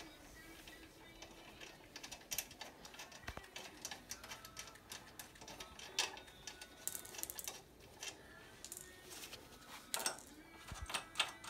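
Light metallic clicks and clinks at irregular intervals as bolts are undone by hand and handled on an ATV's front frame bracket.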